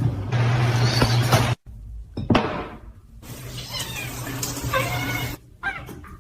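A cat meowing several times across short clips that cut off abruptly, over household noise and a steady low hum.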